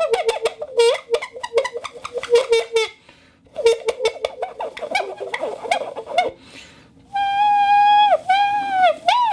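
Bottle whistle blown in several patterns. First comes a fast fluttering trill, then after a brief pause a rougher warble. About seven seconds in, a steady held whistle note starts; it dips and bends in pitch, then breaks into a wavering warble.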